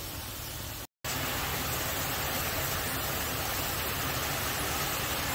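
Rice-flour murukku deep-frying in hot oil, a steady sizzle as they cook toward golden brown. The sound cuts out completely for a split second about a second in, then resumes slightly louder.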